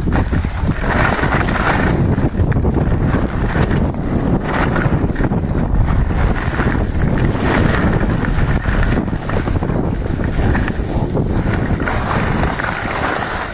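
Wind rushing over a camera microphone carried by a skier going downhill, with the hiss of skis sliding over snow; a loud, steady rush with a deep rumble.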